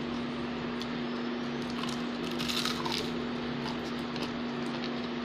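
Close-up eating sounds of a person chewing a fried bean-sprout (togue) roll, with a short run of crunching and clicks about two seconds in. A steady low hum runs underneath.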